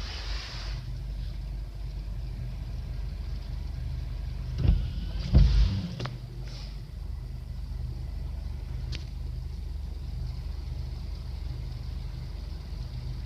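Car running with a steady low engine and road rumble, with two loud thumps about four and a half and five and a half seconds in.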